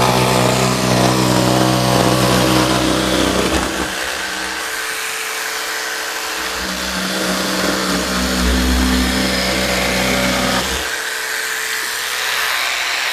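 Festool PSC 420 Carvex 18V brushless cordless jigsaw cutting curves through plywood: the motor running steadily under a rasping blade, its tone shifting around four seconds and again around eleven seconds in as the cut goes on.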